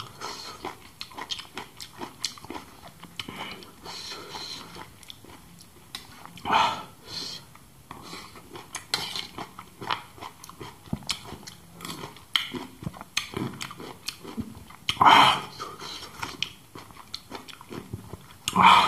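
Close-up eating sounds: a spoon scraping and clicking against the food on a banana leaf, with wet chewing and lip-smacking. A few louder short mouth noises stand out, about a third of the way in, later on and again at the very end.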